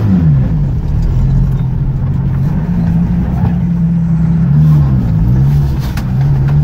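Off-road vehicle's engine running under load, heard from inside the cabin while driving over rough marshy ground. The engine note falls and then climbs again about five seconds in as the throttle is eased and reapplied.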